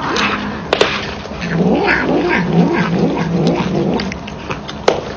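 A domestic cat making low, wavering growl-like yowls while chewing on a toy held in its paws. The yowls are loudest in the middle, with a couple of sharp clicks.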